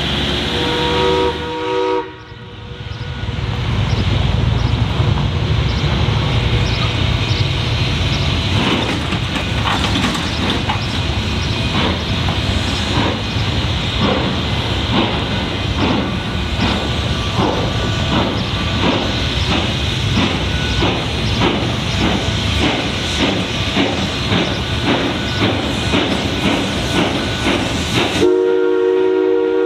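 Durango & Silverton K-28 2-8-2 steam locomotive No. 473 working a train. A short whistle sounds at the start, then the engine pulls away with a steady run of exhaust chuffs. Near the end its whistle blows again, a chord of several tones, as it nears a grade crossing.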